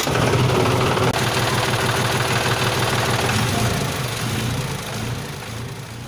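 Tractor engine sound effect running steadily, gradually fading out over the second half.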